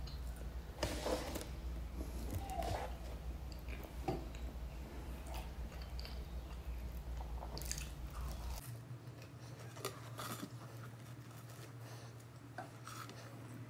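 A person biting into and chewing bread, with crunchy bites and scattered small mouth clicks.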